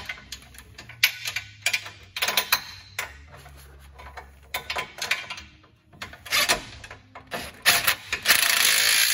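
Cordless electric ratchet running in a series of short bursts as it runs down and tightens a bolt on a steel winch mounting plate, with a longer run of about a second and a half near the end.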